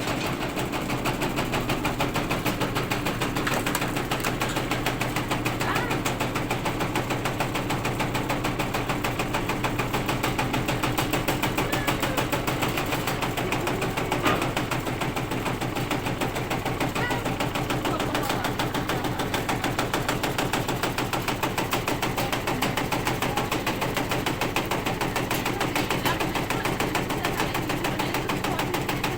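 Washing machine spinning with violent vibration, its cabinet knocking and rattling in a rapid, steady beat over the hum of the motor.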